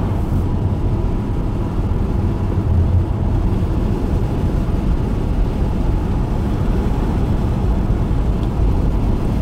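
Steady road and engine rumble inside a moving car's cabin, low and even, with no distinct events.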